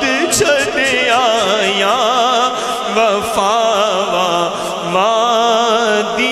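A man singing a devotional verse in praise of the Prophet (a naat) in long, drawn-out notes, each wavering with a slow, wide vibrato, over a steady low drone.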